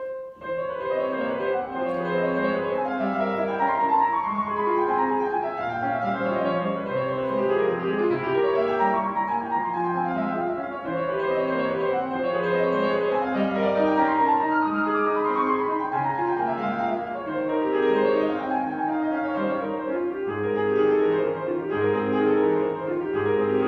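A solo grand piano playing a classical piece, starting at once after a silence and going on unbroken, with quick moving notes over a lower line.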